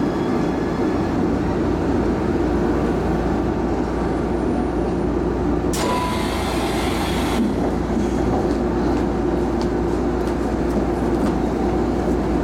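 Shizuoka Railway A3000-series electric train heard from inside its rear cab: a steady low hum as the train slows to a stop. About six seconds in comes a sharp hiss lasting about a second and a half.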